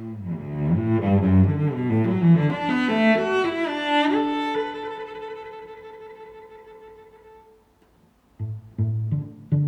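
Background music on low bowed strings: a climbing run of notes reaches a held chord about four seconds in and fades away. Short plucked string notes begin near the end.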